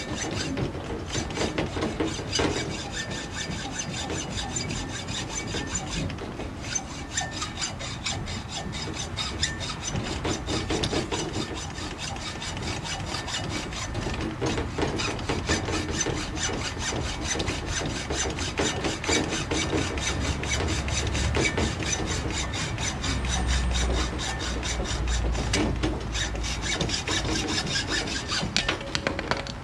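Hacksaw cutting through a metal tube clamped in a bench vise. It makes a steady rasping back-and-forth stroke, with a few short pauses, and stops at the end.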